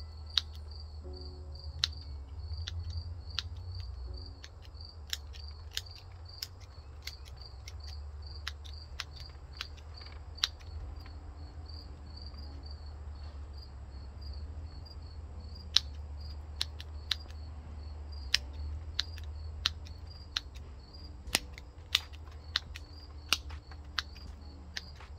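Bonsai scissors snipping juniper shoots: sharp single clicks at irregular intervals, sometimes two or three in quick succession. Under them, a cricket chirps steadily about three times a second over a low steady hum.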